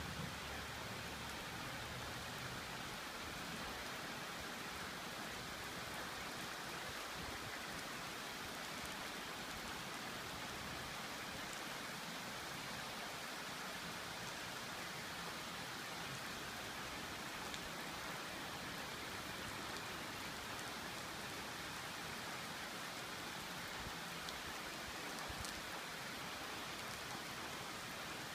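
Rain falling steadily: an even hiss with a few faint drop ticks, a sunshower.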